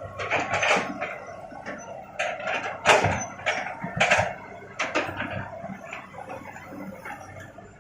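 Stones knocking and clattering as they are moved and dropped: a string of irregular sharp knocks, the loudest about three seconds in, thinning out near the end.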